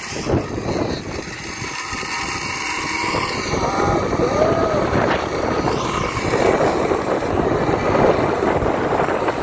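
Zip-line trolley running along the steel cable with wind rushing over the microphone, a steady rush that grows louder as the ride picks up speed.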